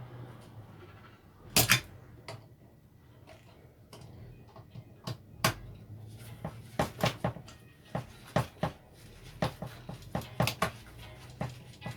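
Irregular sharp clicks and knocks of hand tools and metal parts being handled while the exhaust is taken off a small petrol engine: one loud double knock early, then clusters of quicker clicks in the second half.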